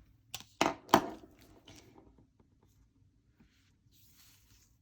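A few sharp knocks of small objects being picked up and set down on a desk, the loudest about a second in, then a faint scratching sound near the end.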